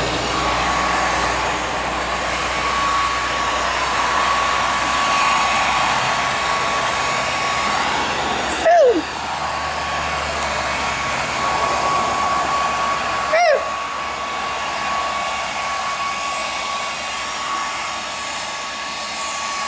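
Steady whirring of a small blower motor with a thin high whine. It is broken twice by a short, loud squeal that rises and falls in pitch, the second about five seconds after the first.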